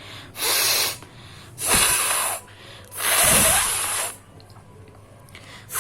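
A person blowing her nose forcefully, three hard blasts of air through the nostrils, each under about a second with short pauses between, the third the longest; another blast starts right at the end.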